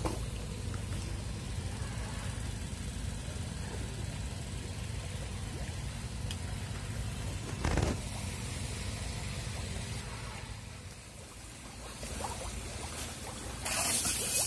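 A steady low rumble with a single thump about halfway. From about two-thirds of the way through comes splashing and slapping as a crowd of hybrid magur catfish thrash at the water surface while feeding, loudest near the end.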